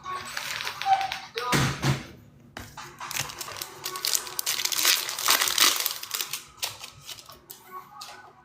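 Pack from a 2024 Topps Chrome Monster box being torn open, with the wrapper crinkling and the cards clicking as they are handled. Sharp clicks run throughout, and the crinkling is thickest in the middle.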